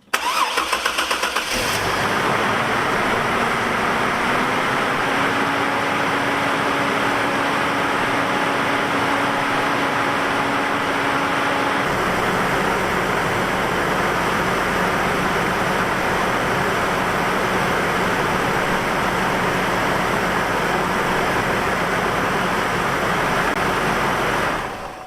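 2002 Chevy Trailblazer's 4.2-litre straight-six engine starting and then idling steadily, running smoothly on all six cylinders now that its cylinder 1 misfire has been cured by a new ignition coil and spark plug. The idle's pitch steps down about halfway through.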